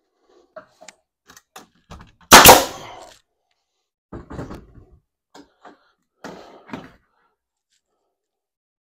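Scattered knocks and clatter of wooden layout framing being handled, with one loud double thunk about two and a half seconds in.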